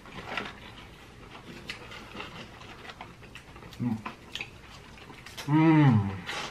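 Close-up chewing and mouth smacks of a person eating fried chicken, with a short "mm" about four seconds in and a longer drawn-out "mmm" hum near the end that rises and then falls in pitch.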